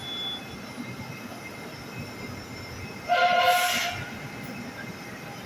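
Moscow metro train's horn sounding once, a steady pitched blast of about a second, about three seconds in, over the low hum of the train standing at the platform.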